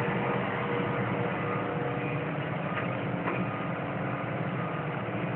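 Tracked demolition excavator's diesel engine running steadily, with a couple of faint knocks about three seconds in.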